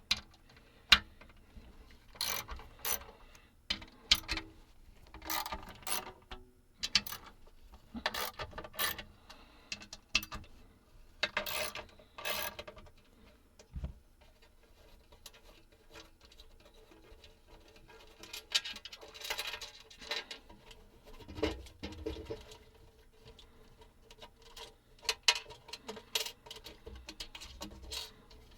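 Small tools and metal parts being handled on a workbench: irregular clicks, scrapes and short rattling, ratchet-like runs, with a quieter pause about halfway through.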